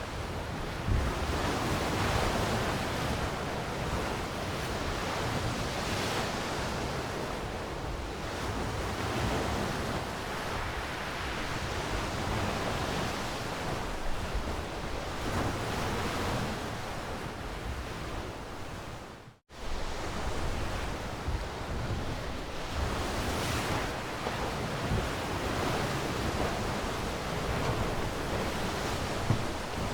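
Ocean waves washing on a shore, a continuous surf that swells and eases every few seconds. About two-thirds through, the sound drops out abruptly for a moment and comes straight back.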